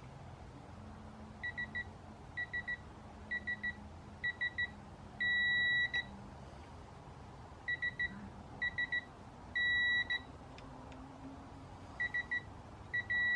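Digital torque wrench beeping as the bolt is tightened: short triple beeps about a second apart, each run ending in a long steady beep that signals the set torque, 15 ft-lbs, has been reached. This happens twice, and a third run starts near the end.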